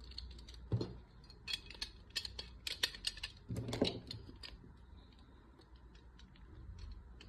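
Metal parts of an HY-G17 spring toy BB pistol clicking and clacking as it is handled and stripped by hand, with two duller knocks among the clicks. The clicks thin out to a few faint ticks about halfway through.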